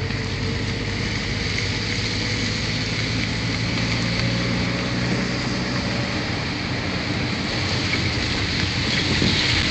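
Vehicle engine running steadily, with a constant low hum under a broad rush of road and wind noise.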